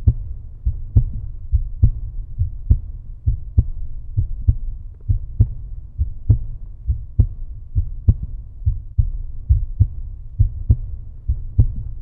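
End-screen soundtrack: a low bass pulse like a heartbeat, about two beats a second, with a short click on each beat.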